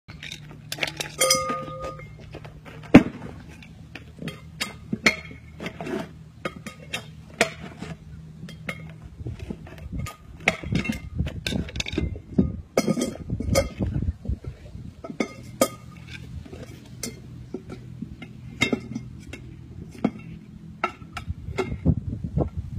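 A steel tire iron and wheels being handled: a string of irregular sharp metallic clinks and knocks, with a brief ringing clang near the start.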